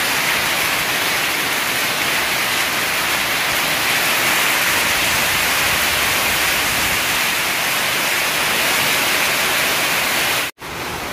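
Heavy hail and rain pouring down in a hailstorm: a loud, steady, dense hiss. It cuts off abruptly near the end and gives way to softer rainfall.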